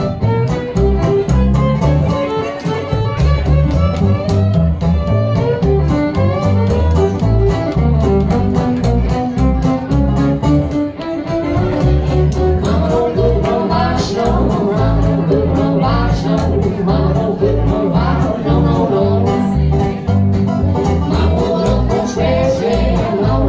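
Live acoustic string band playing a bluegrass-style tune: bowed fiddle over picked five-string banjo and strummed acoustic guitar, with upright bass keeping a steady beat.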